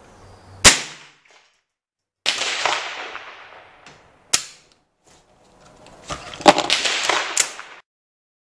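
Shots from an AR-15 fitted with an NEA .22 LR conversion unit, firing CCI standard-velocity .22 LR: sharp cracks a little under a second in and again past four seconds. Around two seconds and six seconds in come longer stretches of noise that die away, the later one holding several more sharp cracks.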